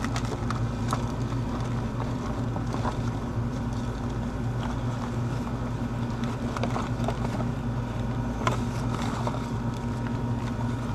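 A steady low mechanical hum, with scattered light clicks and rattles of parts being dug through in a bag in search of a spare contactor.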